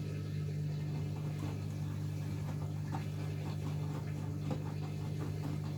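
Hoover Axi 9 kg front-loading washing machine turning its drum during a wash or rinse, a steady low hum under the soft irregular slosh and patter of wet laundry and water tumbling.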